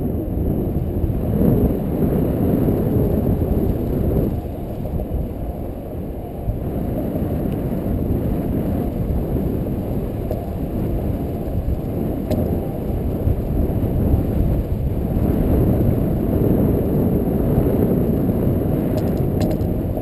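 Wind buffeting the camera's microphone in paraglider flight: a loud, steady low rumble that swells and eases, dipping briefly about five seconds in.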